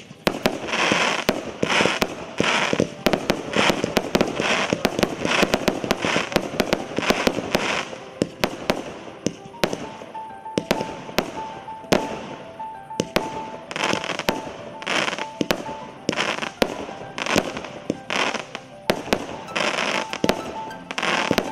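Maxsem MC112 Twister, a 120-shot firework cake in 20, 25 and 30 mm calibres, firing shot after shot, several sharp reports a second with a rush of noise from the bursting stars in between. The barrage thins for a few seconds about halfway, then picks up again.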